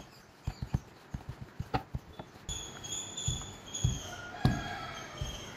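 A wooden rolling pin rolling out a potato-stuffed paratha on a wooden board, giving a string of soft, irregular knocks and thumps as the pin rolls and bumps the board. The loudest knock comes about two-thirds of the way through.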